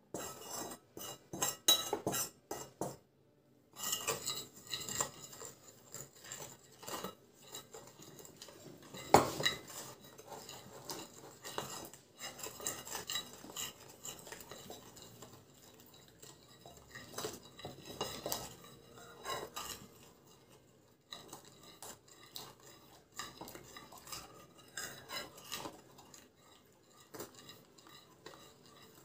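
Metal utensil scraping and clinking against a ceramic bowl while stirring flour and water into batter, in irregular strokes with a short pause early on and one sharper knock about nine seconds in.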